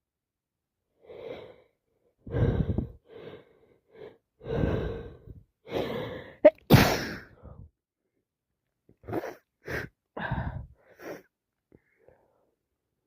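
A person with a head cold drawing a series of catching breaths, then sneezing hard once about six and a half seconds in, followed by a few short, sharp breaths.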